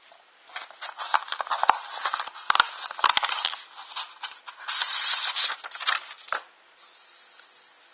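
Crinkling, rustling handling noise, like packaging being handled, with a few sharp clicks. It runs for about six seconds and then stops.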